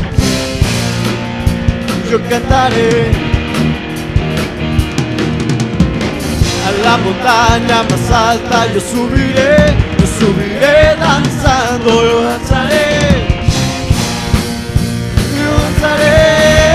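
A young man's voice singing a Spanish worship song into a microphone over a band with drums, the melody wavering with vibrato. Near the end he holds one long note.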